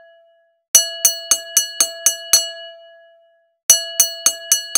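Boxing ring bell sound effect signalling the start of a round: two quick runs of bell strikes, about four a second. The first run rings out; the second cuts off suddenly at the end.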